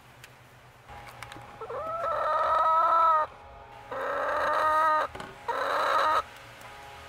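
A hen gives three long, loud, drawn-out calls, the first rising at its start. These are an angry protest at another hen trying to take her nest spot.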